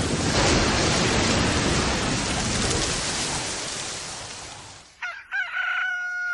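Storm sound effect: a steady rushing of rain and wind that fades out over about five seconds. Near the end a pitched, sustained tone begins.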